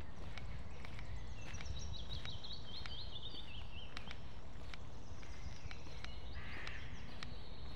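Footsteps crunching steadily on a dirt forest path, over a steady low rumble on the microphone. A small songbird sings a quick run of descending notes a couple of seconds in, and another short call comes near the end.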